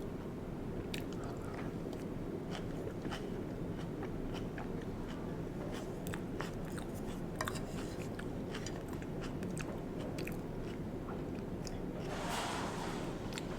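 Close-miked chewing and biting of stuffed sweet potato, with many small wet mouth clicks throughout. A brief soft hiss comes in about twelve seconds in.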